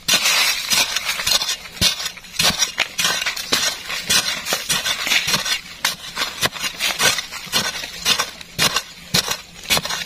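A metal digging tool chopping and scraping into earth, with irregular sharp strikes several times a second.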